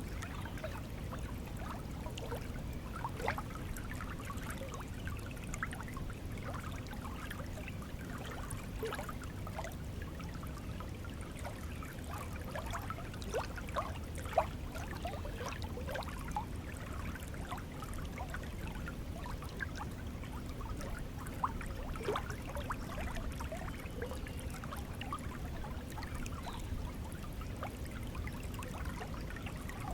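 Stream water flowing steadily: a constant low rush with many small gurgles and trickles, and one brief louder splash about fourteen seconds in.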